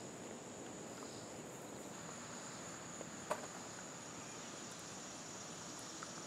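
Insects chirring steadily in a grassy field, a faint, even high-pitched note. A single soft click sounds a little after three seconds in.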